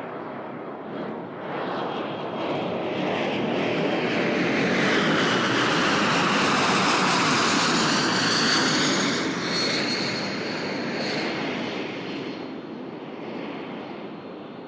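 Bombardier CRJ200 regional jet going by on its landing approach, the sound of its twin turbofan engines swelling to a peak about halfway through and then fading, with a high engine whine that drops in pitch as it passes.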